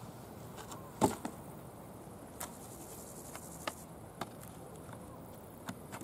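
Open-air ambience: a steady low hiss with faint high insect chirring, broken by a handful of sharp clicks and knocks, the loudest about a second in.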